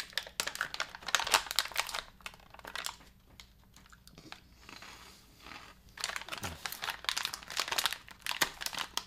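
Plastic snack pouch crinkling as it is torn open and handled, a dense crackle that eases off after about two seconds and starts up again about six seconds in. In the quieter middle stretch, crunchy keto cereal puffs are being chewed.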